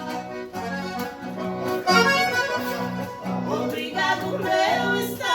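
Accordion (sanfona) playing an instrumental passage, a melody over a steady, repeating pattern of bass notes.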